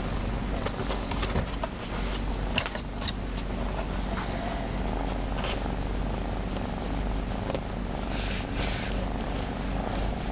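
Domestic cat purring steadily as it is cuddled, with a few light clicks and a short soft rustle of handling about eight seconds in.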